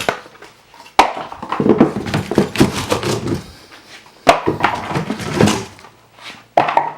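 Packing being pulled out of a wheel's cardboard box: a sharp knock about a second in and another about four seconds in, each followed by rustling and scraping.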